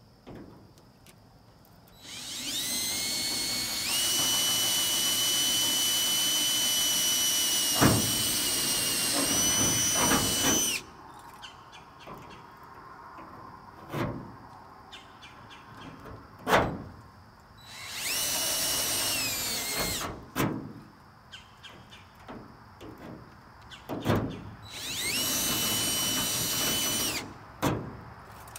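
Cordless drill boring through the sheet-metal trunk lid of a 1973 Plymouth Road Runner. It gives a long run of steady whine that climbs in pitch as it spins up, then two short bursts near the end, with a few knocks in between.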